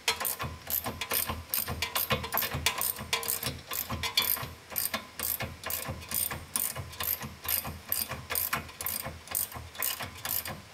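Ratchet wrench clicking in a steady run of rapid clicks as it is worked back and forth on a socket, spinning out a broken steel bolt, welded to a nut, that is backing out of an aluminum carrier.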